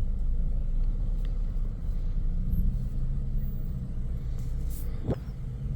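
Car moving slowly, heard from inside the cabin: a steady low rumble of engine and road.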